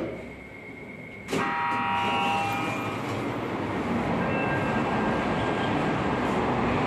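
Road traffic noise from vehicles passing close, loud and steady from about a second in. It begins with a sharp knock and a short pitched tone that fades within a second or two.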